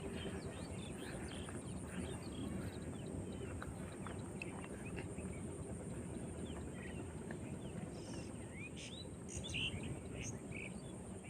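Steady rush of the Beki River's flowing water, with birds chirping throughout in many short calls that grow busier near the end. A steady high insect trill runs over it.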